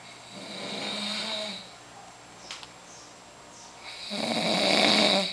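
A man snoring in his sleep: two long snores, the second one about four seconds in and louder.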